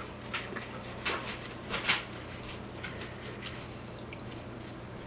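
A few short rustling handling noises, the loudest about two seconds in, then two light clicks, over a steady low hum.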